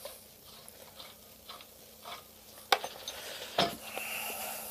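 Scattered light metallic clicks and clinks as metal parts and tools are handled, with a sharper click a little under three seconds in and another near the end.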